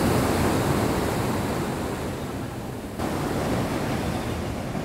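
Heavy storm surf from a hurricane's swell, big waves breaking and churning into foam with a steady rushing noise, and some wind on the microphone. The sound shifts suddenly about three seconds in.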